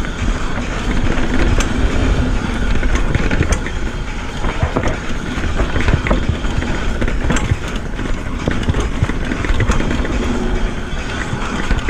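Retro downhill mountain bike descending a dirt singletrack: a steady rumble of air and tyres on dirt, with frequent sharp clicks and rattles from the chain and bike over bumps.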